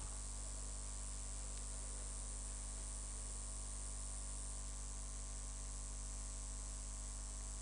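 Steady electrical mains hum with hiss: a low drone with a stack of steady tones, plus a faint high whine that drops out a little past halfway.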